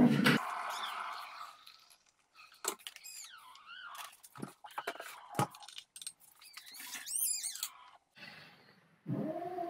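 A cat mewing faintly in a few high, wavering squeaks, among light clicks and knocks of a milk bottle and mug being handled on a kitchen bench. Near the end a steady, long voiced note begins.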